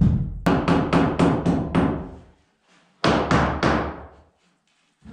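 Hammer blows on wood framing: a quick run of about seven strikes, a pause of about a second, then three more.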